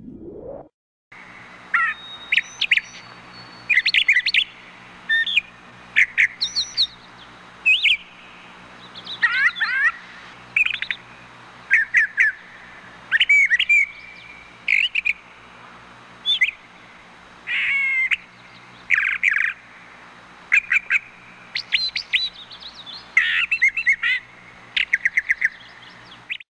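Brown thrasher singing: a long run of short, varied phrases of quick whistles and chirps, each followed by a brief pause, over a faint low hum.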